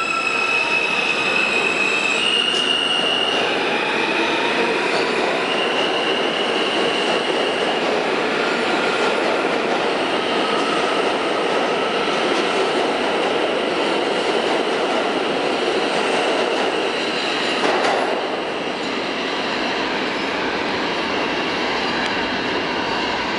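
R160A-1 subway train, with Alstom propulsion, pulling out and speeding up. Its motors give a rising stepped whine in the first few seconds, then the cars run past with a steady rumble and wheel squeal. The noise drops off about 18 seconds in as the last car clears into the tunnel.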